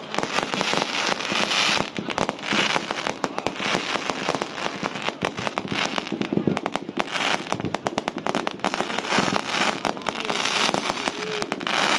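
Fireworks going off in quick succession: a dense, unbroken run of sharp bangs, with spells of crackling from bursting stars every few seconds.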